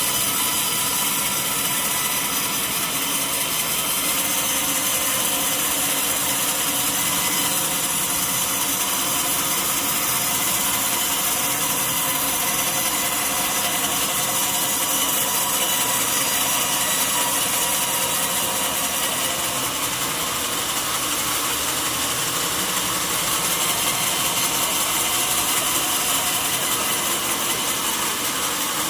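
Sawmill saw cutting lengthwise through a large mahogany log: a steady, continuous machine whine with several held tones over the hiss of the cut.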